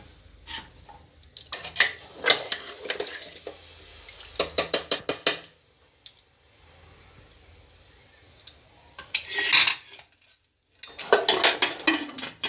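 Metal ladle clinking and scraping against the inside of a pressure cooker while mutton in water is stirred, in several short bursts, then a cluster of metal clatters near the end as the cooker's lid is put on and closed.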